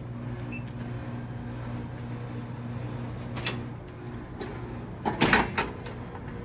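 Vending machine humming steadily, then a short clatter of knocks and rustling about five seconds in as a bag of chips drops into the delivery tray.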